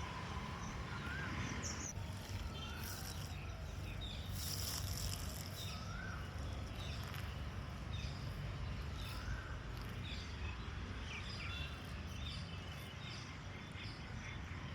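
Birds calling outdoors: one bird repeats a short whistled note that rises and falls every few seconds, with scattered higher chirps from others, over a steady low rumble.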